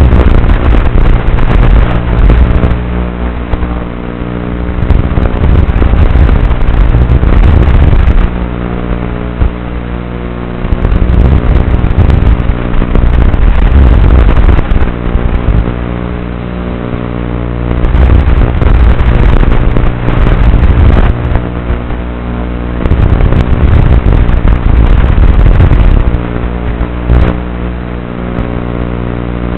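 Tiny whoop micro quadcopter (an Inductrix on Micro Motor Warehouse medium-speed brushed motors) in flight: loud motor and propeller buzz that surges for a few seconds at a time and eases between surges, over a steady hum.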